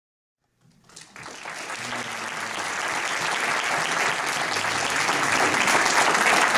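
Audience applauding, starting about a second in and building steadily louder.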